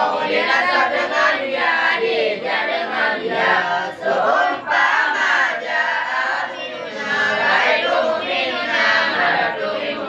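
A group of young men chanting rhymed verses of Arabic grammar (a nadham on nahwu and sharaf, in Acehnese) together in unison, to a sung melody without break.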